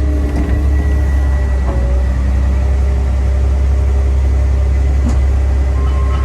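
Cat M316C wheeled excavator's diesel engine running steadily under hydraulic load as the boom is raised, with a low drone and a steady whine over it. A higher steady tone comes in near the end.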